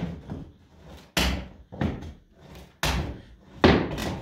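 Hammer blows on an old plywood roof panel and its wooden framing, struck roughly once a second, knocking the nailed panel loose so it can be taken off.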